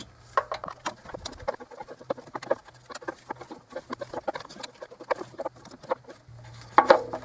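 Ratchet wrench clicking as it turns an intake manifold bolt down, an irregular run of small clicks several a second.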